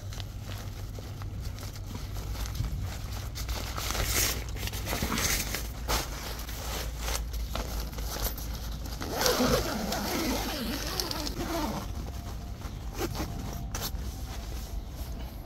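Polyester tent floor fabric rustling and scraping in short bursts as it is pulled and handled by hand, over a low steady rumble.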